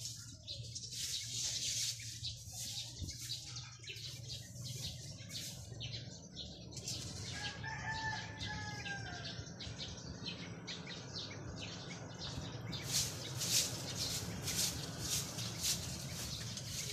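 A rooster crows once, faintly and at a distance, about seven seconds in. Over it runs a steady low hum and repeated crackling, rustling noise, thickest at the start and near the end.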